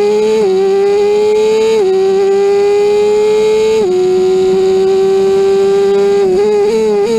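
Formula Ford's Honda Fit four-cylinder engine at full throttle, heard loud from the cockpit, upshifting three times: the pitch drops sharply about half a second, two and four seconds in, and climbs between shifts. Near the end the pitch dips and jumps up in quick steps as the driver brakes and blips the throttle on downshifts.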